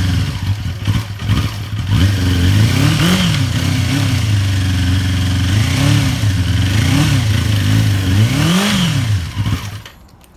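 Yamaha FZ250 Phazer's inline-four engine running on its restart after restoration, revved in several short throttle blips that rise and fall in pitch, then shut off near the end.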